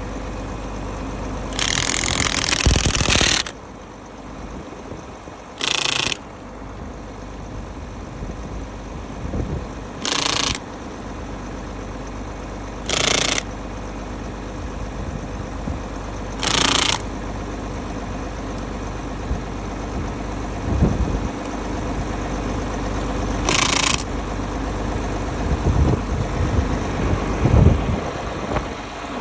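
An engine idling steadily, with six short, loud hissing bursts at irregular intervals; the first is the longest. A few dull thumps come near the end.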